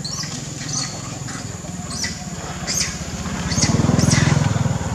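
A motor engine running with a low, rapid pulsing hum that grows louder to a peak about four seconds in. Several short high chirps sound over it.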